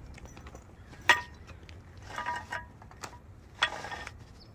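Powder-coated steel frame tubes of a portable pickleball net clanking against each other as they are handled and slotted together: three sharp metallic clanks with a brief ring, the first and last the loudest.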